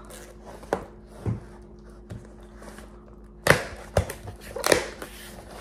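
Cardboard keyboard box being unsealed and opened by hand: a few light taps and scuffs, then from about three and a half seconds in a run of louder scrapes and rustles as the cardboard is slid and pulled open.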